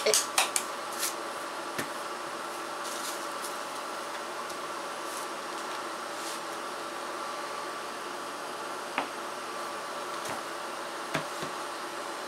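Steady hum and buzz of a portable induction cooktop running under a heating comal, with a few light knocks as masa and a wooden board are handled.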